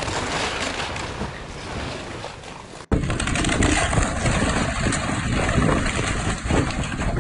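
Wind buffeting the microphone over a rushing, flood-swollen river. The sound drops out for a moment about three seconds in, then comes back louder with a heavier low rumble.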